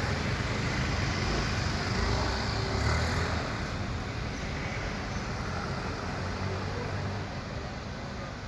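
Road traffic noise: a passing vehicle's engine swells to its loudest about three seconds in, then fades away slowly.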